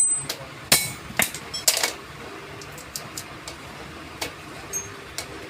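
Metal being tapped with a hammer: a run of sharp strikes that ring briefly, the loudest close together in the first two seconds, then fainter taps spaced further apart.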